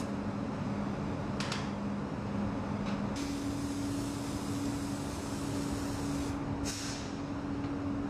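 Car assembly-line factory noise: a steady machine hum that steps up in pitch about three seconds in, over a constant rushing noise, with a few short hisses.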